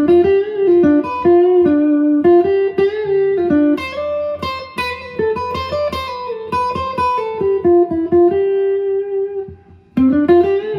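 Electric guitar improvising a single-note melodic line in the Dorian mode, picked notes one after another. The line stops briefly about nine and a half seconds in, then a new phrase begins.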